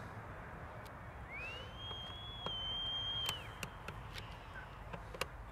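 Fireworks display heard at a distance: a few sharp short pops over an even background hiss, with one high whistle that rises about a second in, holds for about two seconds and then drops away.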